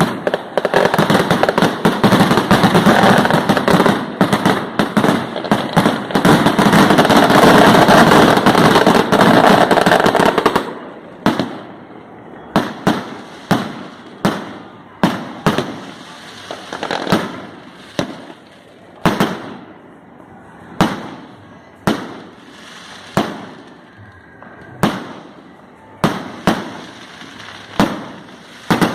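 New Year's fireworks and firecrackers: a dense, rapid crackle of bangs for about ten seconds, then cuts to separate sharp bangs about once a second, each with an echoing tail.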